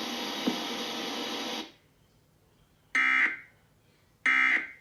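Emergency Alert System end-of-message signal: two short electronic data tones a little over a second apart, the digital code that closes the alert. A steady hiss before them cuts off suddenly, leaving a near-silent gap.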